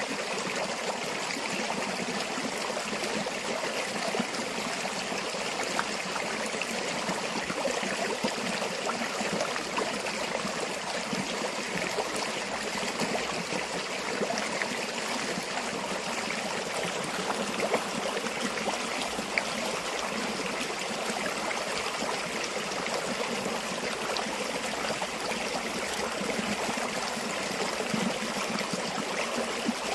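River water flowing steadily over stones, an even rushing with small splashes and trickles.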